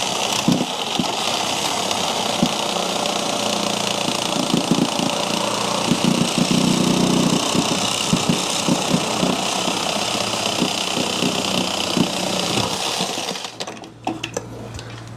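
Power saw running steadily as it cuts out a section of drain pipe, stopping about 13 seconds in, followed by a few clicks and knocks.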